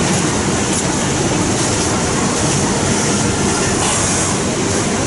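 Steady, dense mechanical din of industrial sewing machines, an overlock (serger) machine among them.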